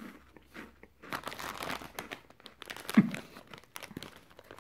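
A crunchy corn cheese puff being chewed, then a plastic snack bag crinkling as it is picked up and handled. One loud bump comes about three seconds in.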